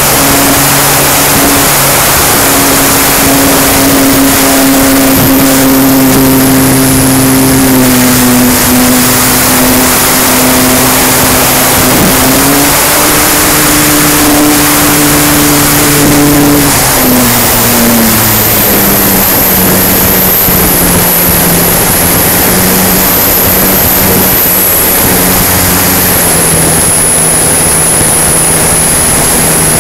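Onboard sound of an RC plane's E-flite Power 160 electric motor and propeller in flight: a steady hum under heavy wind rush over the camera. The pitch rises a little partway through, then drops lower just past halfway as the motor slows, and a thin high whine comes in at the same time.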